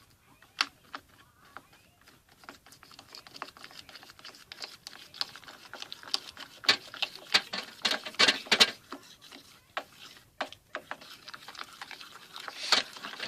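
Homemade hand-soap slime being handled and poked with fingers, giving rapid sticky clicks and crackles that grow denser toward the middle.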